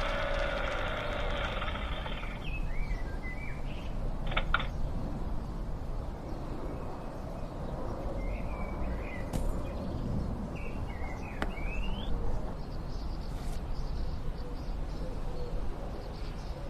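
Outdoor ambience: a steady low rumble with small birds chirping in short, scattered calls. A denser mechanical noise in the background cuts off about two seconds in, and there are a few soft clicks.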